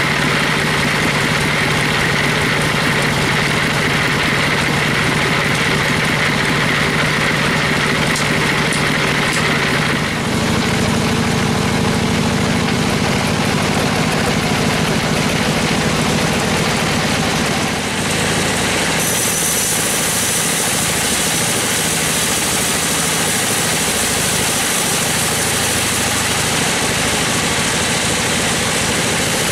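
Sawmill bandsaw running with the steady drone of its drive engine. The sound changes abruptly about ten seconds in, and again a little before twenty seconds, when a high hiss joins in.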